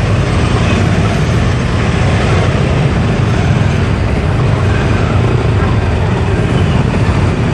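Steady vehicle and road noise, mostly a constant low rumble.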